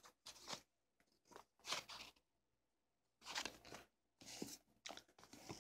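Pages and covers of old paperback books being handled and turned: a series of short, faint papery rustles.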